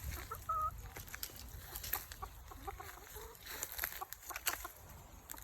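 Chickens clucking quietly, with a short call about half a second in and scattered light clicks.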